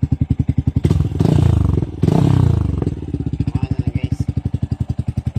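Motorcycle fitted with an aftermarket MVR1 power pipe exhaust, idling with a fast, even exhaust pulse. The throttle is blipped twice in quick succession, about one and two seconds in, before it settles back to idle.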